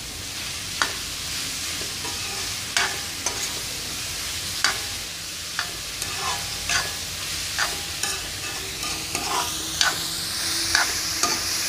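Sliced onions sautéing in oil in a metal kadai with a steady sizzle, stirred with a steel ladle that clinks and scrapes against the pan about a dozen times at irregular intervals. The sizzle grows a little louder near the end.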